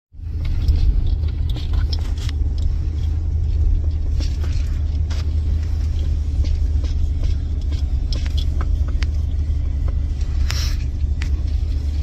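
A vehicle driving over rough grassy ground, heard from inside its cabin: a steady low rumble with scattered sharp clicks and rattles.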